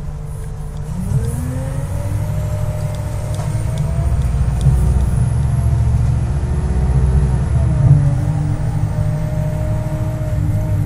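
A Detroit Diesel Series 50 inline-four diesel in a NABI D40LFW transit bus, pulling under load. Its pitch climbs over the first few seconds, then drops sharply about eight seconds in as the Allison automatic transmission shifts up, and it runs on steadily after that.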